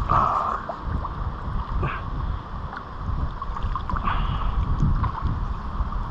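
Wind buffeting the microphone in a steady low rumble, with water sloshing and a few small splashes.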